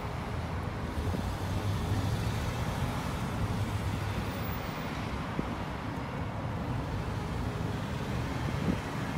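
Street traffic noise: a steady low engine rumble of passing vehicles.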